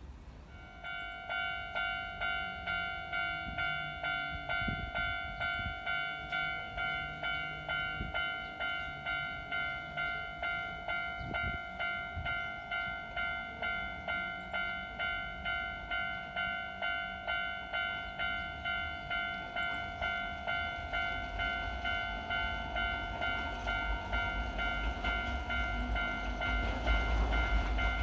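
Railway level-crossing warning bell starts ringing about a second in, an even electronic clang at a little under two strokes a second, signalling an approaching train. Over the last few seconds the low rumble of the oncoming narrow-gauge electric train grows beneath it.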